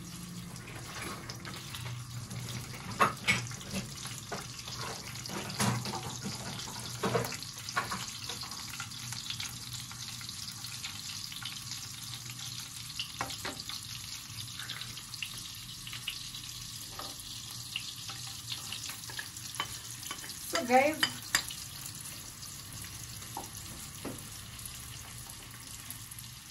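Butter sizzling as it melts in a non-stick frying pan on a gas burner: a steady hiss, with scattered knocks and clicks of utensils on the pan and a brief wavering squeal about two-thirds of the way through.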